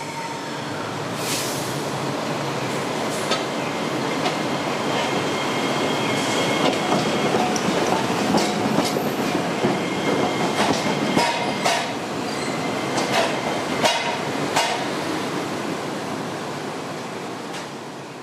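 Iyo Railway 5000-series low-floor tram running past close by, its wheels clicking irregularly over the rail joints and points with a thin high squeal from the wheels on the track. The sound fades near the end.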